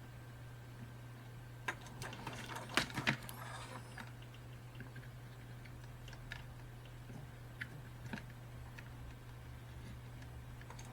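Faint scattered clicks and taps of soldering work on a small circuit board, with a cluster of them about two to three seconds in, over a steady low hum.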